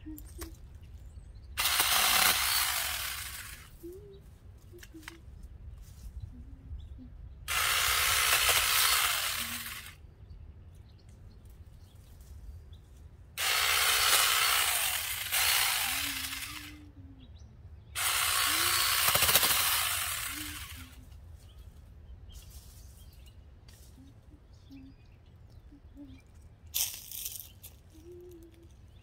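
Cordless mini chainsaw running in four bursts of two to three seconds each, cutting through small tree branches, with a brief fifth burst near the end.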